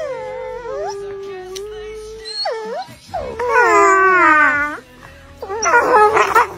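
Two dogs howling in long, wavering howls that slide down in pitch. The loudest howl comes about halfway through, and a shorter loud burst of howling follows near the end.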